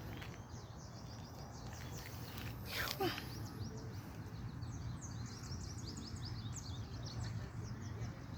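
Small birds chirping in quick repeated high notes, heard from about halfway through, over a steady low background hum. A brief, louder sound with a short pitch sweep comes about three seconds in.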